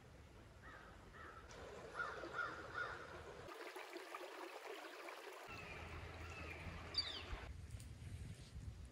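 Faint outdoor forest ambience with a short series of animal calls about two seconds in, three calls in quick succession, and a quick high chirp near the seven-second mark.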